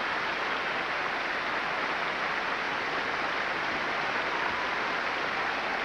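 Large theatre audience applauding steadily in a standing ovation, a dense unbroken patter of many hands clapping.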